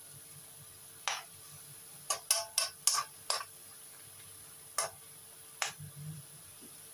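A metal utensil scraping and clinking against a wok while stir-frying cabbage: about eight short, sharp strokes at irregular intervals, with a pause of over a second in the middle.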